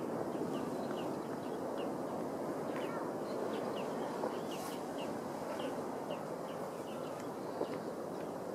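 A small bird calling in a quick string of short, high chirps, a few each second, over a steady low rushing background noise.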